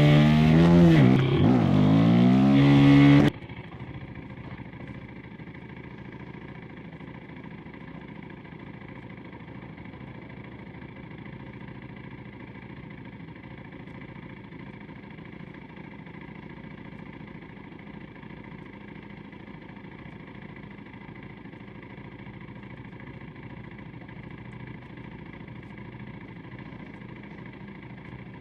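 KTM 390 SMC-R single-cylinder engine revving up and down with a loud intake sound from its Stage 2 DNA filter. About three seconds in it drops suddenly to a much quieter, steady engine sound, as at idle.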